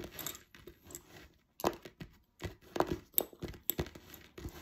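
Lace bobbins clicking and knocking against one another in irregular clicks as the pairs are crossed and twisted in cloth stitch.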